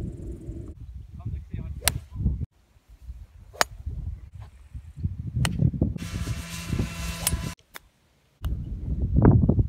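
Golf clubs striking balls: a series of sharp cracks of club on ball, one every second or two, over wind buffeting the microphone.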